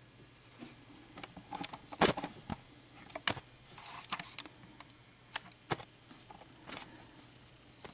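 Scattered light clicks and taps of small metal lock pins and parts being handled and moved about on a surface, the sharpest about two seconds in and again just after three seconds.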